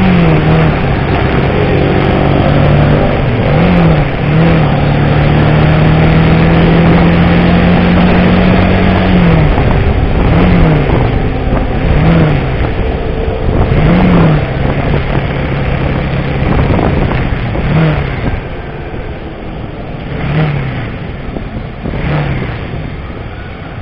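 Motorcycle engine running while riding, its pitch rising and dropping in quick throttle blips about ten times, with one longer steady stretch, over a steady rush of road noise.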